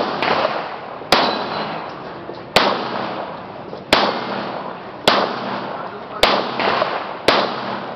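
Handgun fired six times at a steady pace, a shot every second or so, each crack followed by a long ringing tail.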